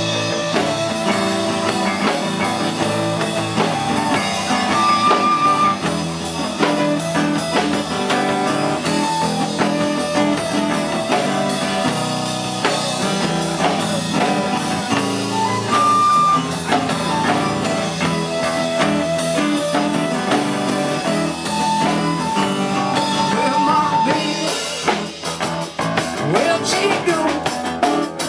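Live blues-rock band playing: acoustic guitar, electric bass and drum kit, with a flute holding long notes over the rhythm.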